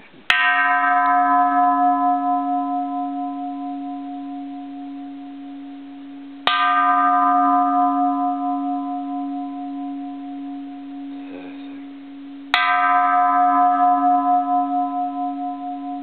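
Edo-period bronze Japanese Buddhist temple bell struck lightly three times, about six seconds apart. Each strike rings on with a steady low hum and brighter higher tones that die away over several seconds, still sounding when the next strike comes.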